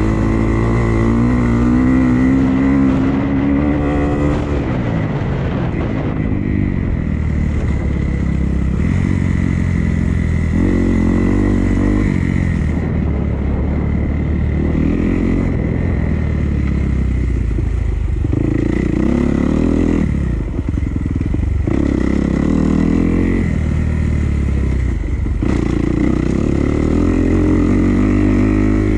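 Dirt bike engine being ridden, revving up and down with the throttle opening and closing every few seconds.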